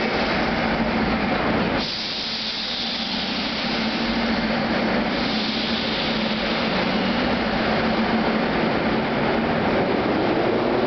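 Moscow metro track-measuring train rolling along a station platform: a steady rumble of wheels on rail with a constant motor hum, echoing in the station hall. The sound dips briefly about two seconds in and grows brighter again a few seconds later.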